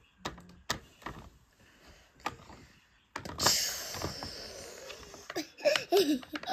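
Light clicks and taps of plastic doll toys being handled. About three seconds in comes a hissing whoosh, lasting a second or two, as a doll is dropped into a toy plastic pool, followed by a few more plastic knocks.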